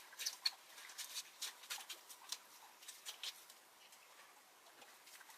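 A quick, irregular run of light, sharp clicks and ticks that thins out after about three and a half seconds.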